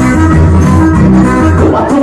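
Loud music with a heavy pulsing bass played through a car sound-system trailer (carretinha de som).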